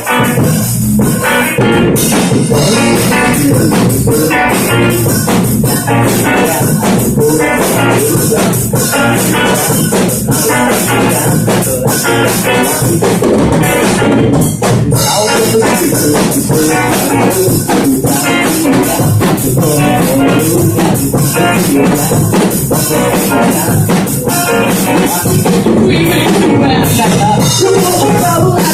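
Live rock band playing a passage without vocals: drum kit, electric guitars and bass.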